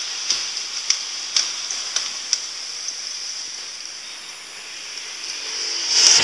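Cat eating dry kibble from a bowl: a few sharp crunching clicks, about one every half second, over a steady hiss, then a louder rustling swell near the end.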